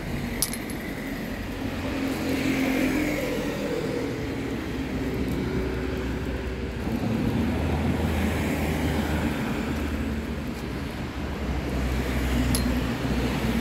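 Road traffic passing on the street alongside: a low engine drone that swells and fades as cars go by. Two sharp clicks, one just after the start and one near the end, as hazelnuts drop into a glass bowl.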